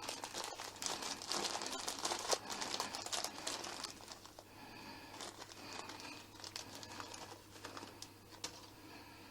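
Crinkling and rustling as things are handled, dense for the first four seconds, then thinning to scattered clicks and light rustles.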